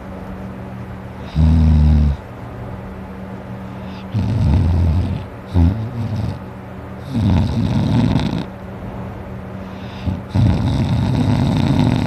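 A person snoring loudly in their sleep: four snores about every three seconds, the first short with a clear pitch, the later ones longer and rougher, over a steady low hum.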